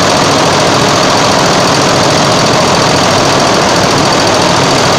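Multi-needle embroidery machine stitching at speed: a loud, steady, rapid mechanical clatter from the needle bar driving the needles through the fabric.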